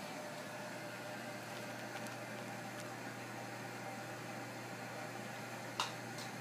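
Steady machine hum and hiss like a running fan, with a few faint clicks and one sharper click near the end.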